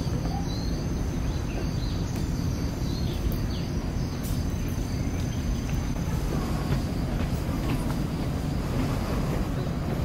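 A steady low rumble of a vehicle or engine running, with faint short high chirps or squeaks now and then.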